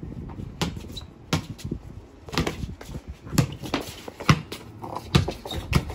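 Basketball dribbled on brick pavers: a series of single thuds, roughly one a second.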